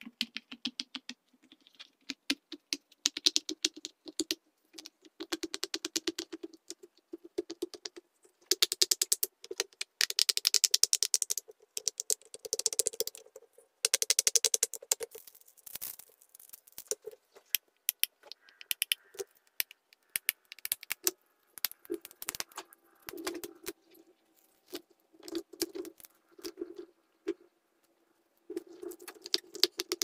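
Silicone pop-it fidget toys being pressed, the bubbles popping in quick runs of soft clicks with short pauses between runs. Through the middle the clicks are sparser while a plastic infinity cube is turned and folded in the hands.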